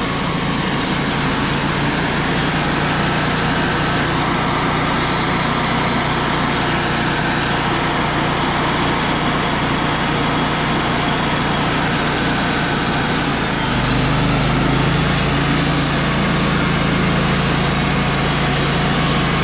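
Wood-Mizer LT35 portable band sawmill running steadily, its engine and band blade going without a break. About fourteen seconds in, the engine note deepens and gets a little louder.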